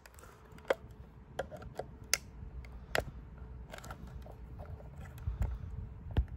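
Flat-blade screwdriver tip clicking and scraping against the plastic housing of a SpectrAlert Classic horn/strobe as it is worked into the case seam to pry it open, with the tool not yet going in. Scattered sharp clicks, one or two a second, over low rumble from handling the device.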